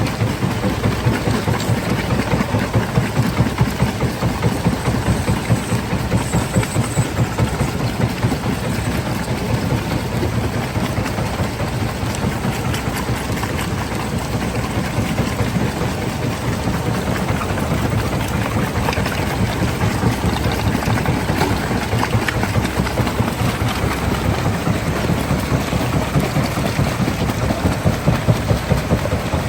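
Stone crushing plant machinery running steadily: a loud, continuous heavy mechanical rumble with a fast, fine pulsing throughout.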